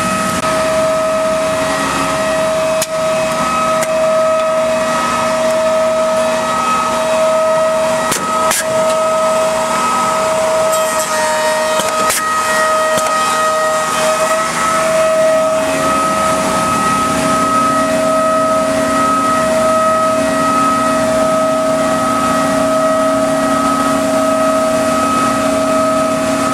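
Maggi 3/50 edgebander running as it edges a panel with thick PVC banding: a steady motor whine over a hiss from the trimming cutters, with a few sharp clicks and a slight dip in pitch partway through.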